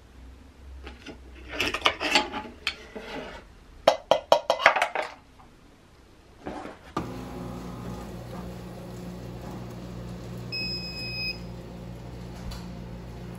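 A metal fork and spoon clattering and clinking against a wooden plate as they are gathered up. After that comes a steady machine hum, with a short electronic beep a little past halfway.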